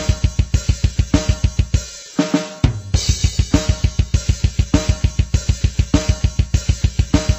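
Background music with a fast, steady drum-kit beat; the low thumping drops out for a moment about two seconds in and comes back with a cymbal wash.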